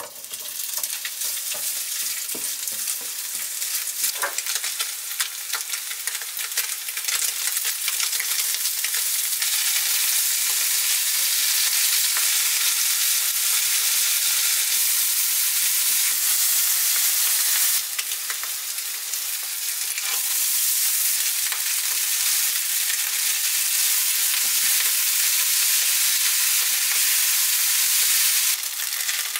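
Diced Spam sizzling hard in a hot frying pan, starting abruptly as it is tipped in. The frying goes on as kimchi and rice are added and stir-fried with a spatula, with light scrapes in the pan. The sizzle dips briefly about two-thirds of the way through and again near the end.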